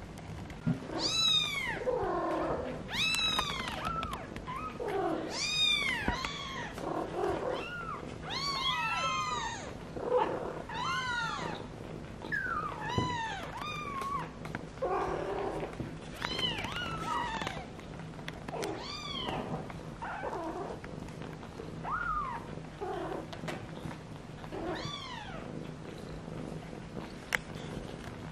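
Young kittens mewing over and over in short high calls that rise and fall in pitch, one every second or two, fading out near the end. A cat's steady low purr runs underneath.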